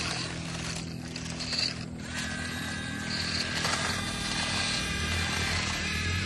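Radio-controlled toy excavator's small electric motors whirring steadily, with a higher whine joining about two seconds in.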